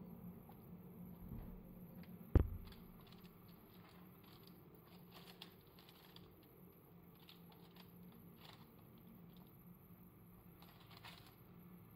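A single sharp knock about two seconds in, then faint, scattered light clicks and taps of a metal teaspoon scooping poppy seeds in a small glass and sprinkling them over cake batter.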